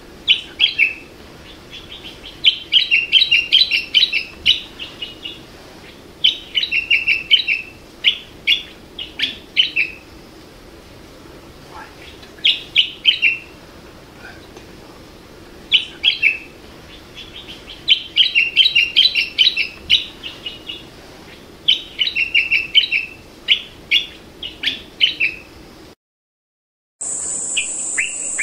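Common bulbul singing: short phrases of quick, chattering notes, repeated every few seconds. Near the end the sound drops out for about a second, and a steady high insect trill with other bird calls follows.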